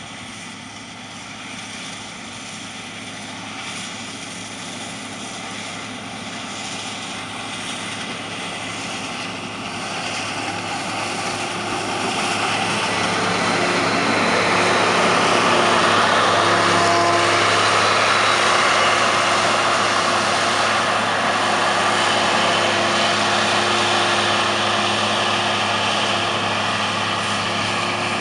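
New Holland combine harvester with a swath pickup header, running as it lifts and threshes a borage swath: a steady engine and machinery drone that grows louder as it comes close over the first half, then eases slightly as it moves away.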